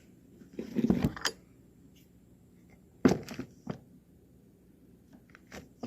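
Knocks and clunks of a VW Beetle door hinge and its new hinge pin being handled while the pin is worked into the hinge: a cluster of knocks about a second in, a single sharp knock about three seconds in, and a couple of lighter ones later.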